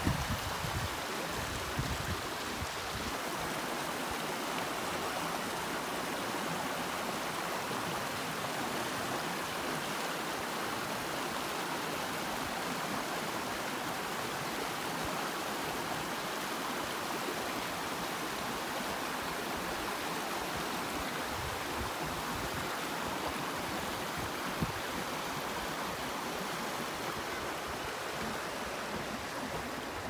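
Small rocky creek rushing and splashing over stones, a steady, unbroken flow of water.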